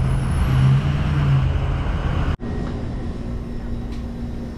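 Car engine and road noise heard inside a moving car, with a strong low hum. About two seconds in it cuts abruptly to a quieter steady hum with a faint steady tone.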